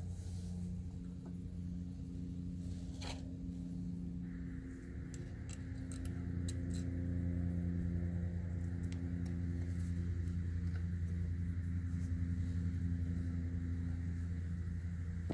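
Steady electric motor hum, most likely the 996 Turbo spoiler's hydraulic pump running while the system is bled. A higher whine joins about four seconds in, with a few light clicks of fittings being handled.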